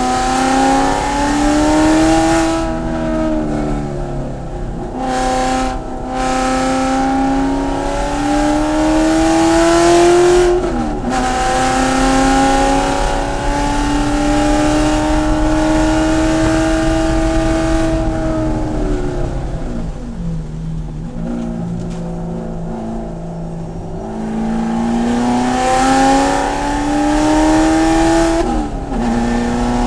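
Corvette C7 racecar's V8 engine at full throttle, its pitch climbing through the gears with sharp drops at each upshift. About two-thirds of the way through the pitch falls and stays low while the car slows for a corner, then climbs again as it accelerates back out.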